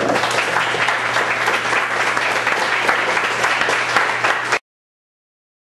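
Audience applauding, a dense patter of many hands clapping that cuts off suddenly about four and a half seconds in.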